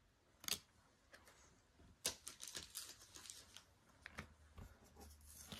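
Trading cards and foil booster packs being handled on a tabletop: one sharp tap about half a second in, then a run of light clicks and rustles from about two seconds on.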